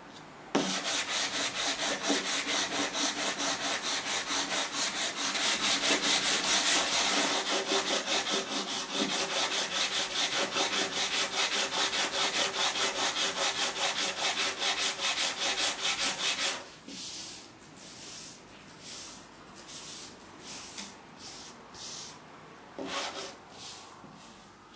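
A "Mat Smoother" mat-cleaning pad is rubbed rapidly up and down over a rotary cutting mat, about five even strokes a second, scrubbing batting fluff off the surface. About two-thirds of the way through the fast scrubbing stops and gives way to a few slower, quieter strokes.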